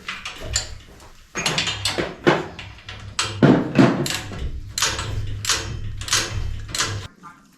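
A rapid series of knocks and clanks, about a dozen in six seconds, over a low steady hum that cuts off suddenly near the end.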